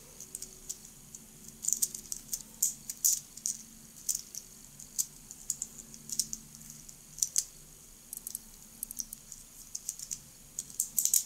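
Small plastic blocks of a Xiaomi folding fidget cube clicking and clacking against each other, irregularly, as the cube is turned and folded open and shut in the hands.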